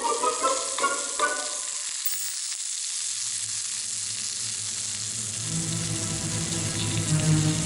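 Food sizzling as it fries in a pan, a steady hiss, under background music.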